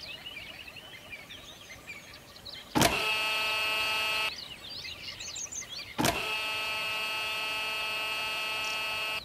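Small electric motor of a homemade toy tractor whining at a steady pitch in two runs: a short one about three seconds in and a longer one from about six seconds in, each starting abruptly. Faint birdsong in the gaps.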